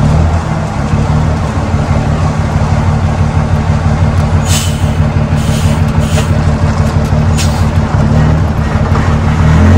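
Cummins L10 inline-six diesel running steadily through 6-inch straight-pipe stacks as the truck drives, a deep even exhaust note. A few short hisses come through about halfway in.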